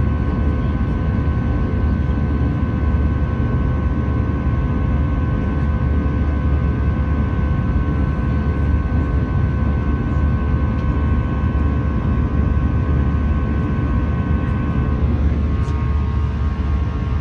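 Jet airliner cabin noise in flight: the low, steady rumble of the turbofan engines and airflow, with a few steady whining tones above it that shift slightly near the end.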